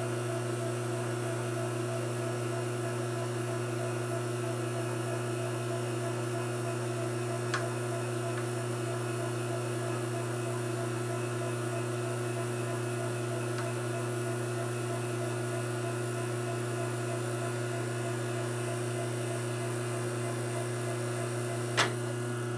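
Steady electric motor hum of shop machinery, with a light click about seven and a half seconds in and a couple of sharp metal clicks near the end as the boring head on the milling spindle is handled.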